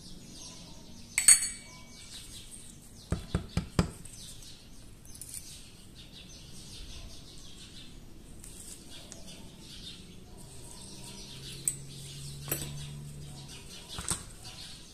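Metal tweezers and small steel parts clicking and clinking against the slide of a Beretta 950 pocket pistol during disassembly. There is one sharp click about a second in, a quick run of four or five clicks around three to four seconds, and a few lighter taps near the end.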